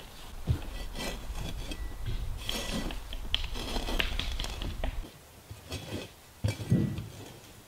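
Rubbing and scraping of camping gear and wood being handled, busiest over the first five seconds, then quieter with a few dull knocks near the end.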